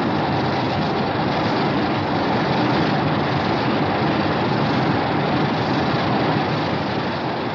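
A Ghost Godzilla monster sound effect: a harsh, steady rumbling noise with no clear pitch. It cuts in abruptly, holds for several seconds and starts to fade near the end.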